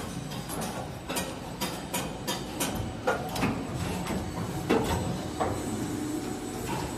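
Injection molding machines running: a steady mechanical hum with irregular clicks and clunks from the machines' moving parts, a louder knock about three seconds in and another a little before five seconds.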